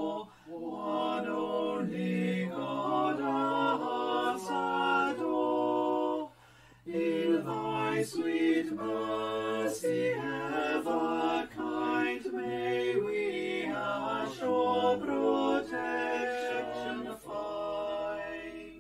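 Unaccompanied singing of a slow sung piece, with a short pause about six seconds in.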